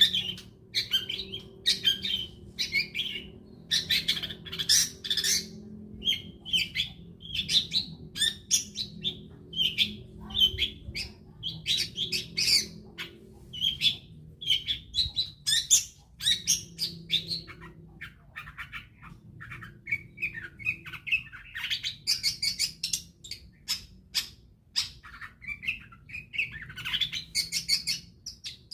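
Long-tailed shrike (cendet) singing a fast, varied song of short chattering notes in quick runs, with brief pauses between them. This is the kind of song played as a lure to set caged shrikes singing.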